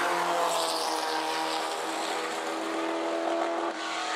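Matich SR4 sports-racing car's Repco V8 at high revs, accelerating hard away down the straight, its pitch climbing, with an upshift near the end.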